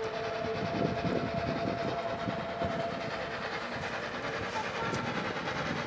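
Steam locomotive approaching and running steadily, a noisy rumble with irregular low knocks. A single steady whistle note runs through the first half and stops.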